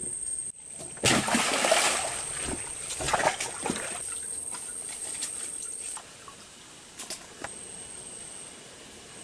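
Rubber boots wading and splashing through a shallow creek, with sloshing steps through the water. The splashing is loudest in the first few seconds and gives way to quieter forest background after about six seconds.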